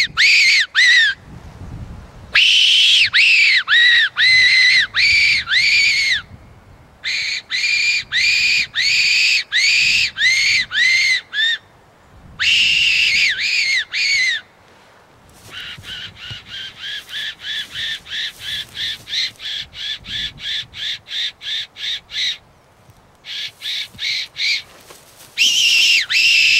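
Fox whistle blown in loud runs of rapid squeals, each rising and falling in pitch, with short pauses between the runs and a softer, quicker run of flatter squeaks midway. It is the call used to lure foxes in.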